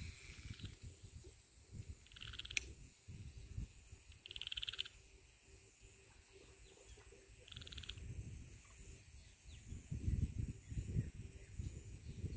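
An animal calls three times, each call short and rapidly pulsed, over an irregular low rumble that swells near the end. A steady, thin, high-pitched whine runs underneath throughout.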